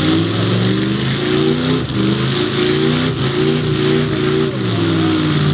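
Pickup truck's engine revving again and again, its pitch climbing and dropping about once or twice a second, as the truck sits sunk in a deep mud rut trying to drive out.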